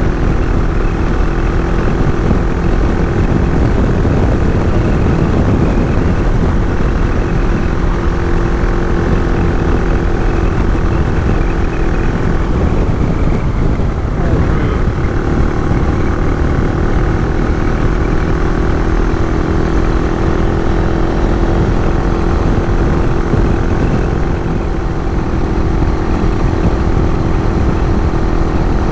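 AJP PR7's single-cylinder engine running steadily at cruising speed on the open road, its note wavering briefly about halfway through.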